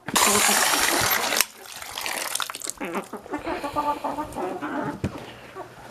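Water gushing out of a container for about a second and a half as the chickens' water is poured, then chickens clucking.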